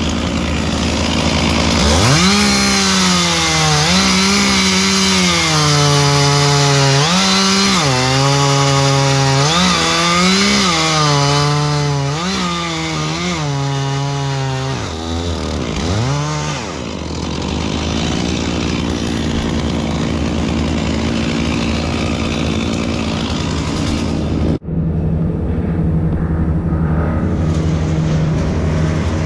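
Stihl chainsaw cutting wood, its engine pitch rising and falling again and again for about fifteen seconds as the load comes and goes. Underneath, a steadier engine hum keeps running, and it carries on alone for the last part of the clip.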